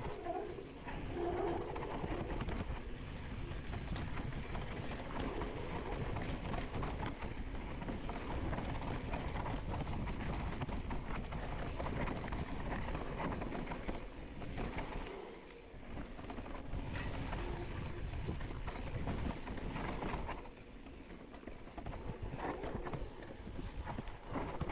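Mountain bike riding fast down a dry dirt singletrack: tyres running over loose dirt and rock, with the bike rattling and knocking over bumps. The noise drops off briefly about two-thirds of the way in, and again for a couple of seconds soon after.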